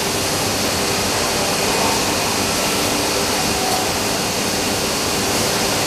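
HOMAG CNC woodworking machining center running, a loud, steady rushing noise.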